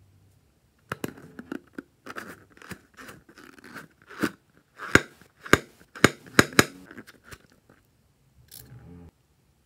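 A rubber balloon filled with liquid slime squeezed and kneaded by hand: a run of crinkling rubber squeaks and sharp clicks, loudest about halfway through. Near the end comes a short snip of scissors cutting the balloon's neck.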